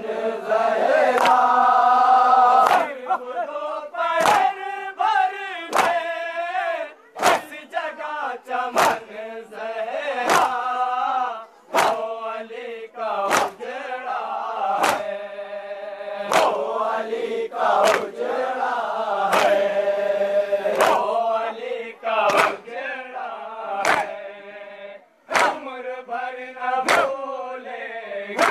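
A group of men chanting a farewell noha, a mourning lament, in unison, with loud chest-beating slaps (matam) keeping time about once every one and a half seconds.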